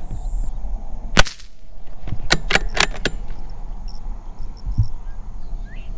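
A single shot from a Ruger Precision .22 LR bolt-action rifle about a second in, a sharp crack with a short ring after it. About a second later come four quick clicks in close succession, the bolt being worked for the next round. A low rumble of wind on the microphone runs underneath.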